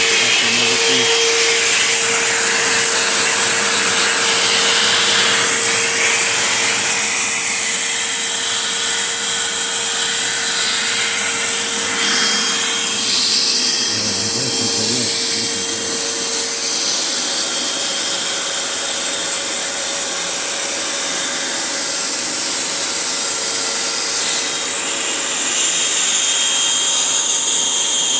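Vacuum cleaner switched on and running steadily, its motor whine settling to a constant pitch, while dust is cleaned out of the laptop's insides.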